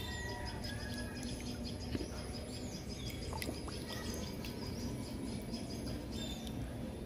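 Birds chirping with short, high, downward-sweeping calls that repeat every few seconds over a steady background noise.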